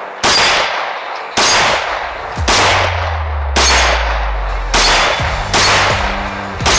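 Custom AR-15 rifle fired seven times in steady aimed fire, about one shot a second, each crack trailing off in a short echo.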